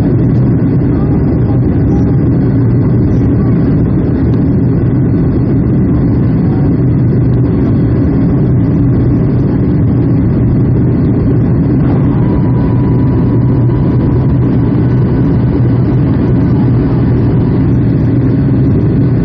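Steady, loud cabin noise of a Boeing 757-200's jet engines and rushing air, heard from inside the passenger cabin, with a low drone that does not change. A faint steady whine joins about twelve seconds in.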